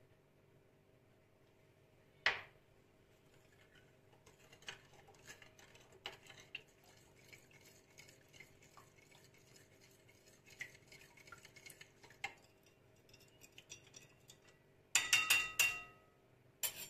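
Metal spoon stirring yeast, sugar, salt and olive oil into warm water in a glass bowl to dissolve the yeast, with light clinks and scrapes against the glass. There is one sharp clink about two seconds in, and near the end a quick run of louder, ringing clinks of spoon on glass.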